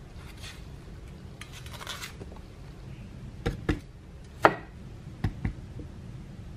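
Chef's knife cutting a green bell pepper on a wooden cutting board. Soft rustling as the pepper is handled comes first, then five sharp knocks of the blade on the board in the second half, mostly in close pairs.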